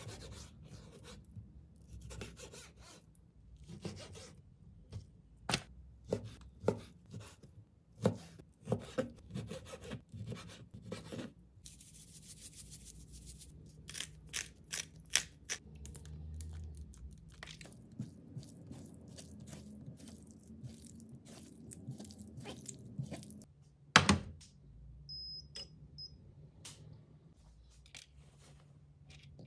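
Kitchen knife cutting raw chicken on a plastic cutting board, a run of irregular knocks and scrapes for roughly the first eleven seconds. Then a pepper grinder is twisted over the meat, followed by quieter handling and a single loud knock later on.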